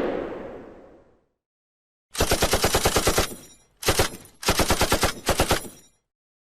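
Machine-gun sound effect: three bursts of rapid automatic fire at about ten shots a second, a burst of about a second, a short one, then a longer one. A whoosh fades out just before it.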